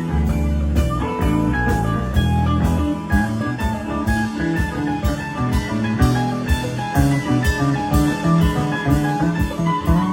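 Live band playing an instrumental passage: electric guitar lead over bass and drum kit, with a steady beat.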